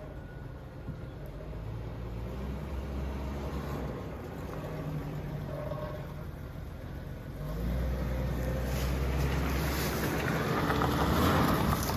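Weiand-supercharged, carbureted small-block Chevy V8 of a 1984 Camaro Z28 running roughly on its first start after reassembly, still needing carburetor tuning and timing adjustment; it grows louder and fuller about seven and a half seconds in.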